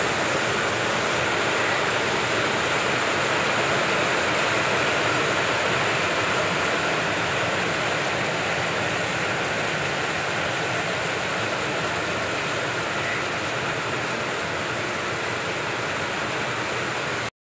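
Steady, even rushing noise with no distinct tones or rhythm. It cuts off abruptly near the end.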